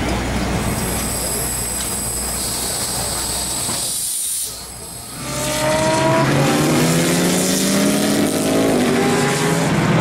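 Steady mechanical noise with a faint high whine, then, after a short drop about four seconds in, race cars going by on track, louder, their engine notes falling in pitch as they pass.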